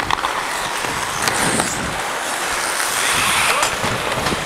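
Ice skate blades scraping and carving the ice with each stride, with a few sharp clicks near the start and about a second in.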